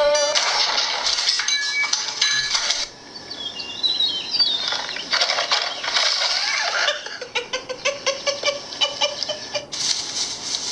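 Soundtrack of a funny home-video compilation playing back: short clips cut abruptly one after another every couple of seconds, a jumble of clatter with high wavering squeaks in one clip and a run of quick clicks in another.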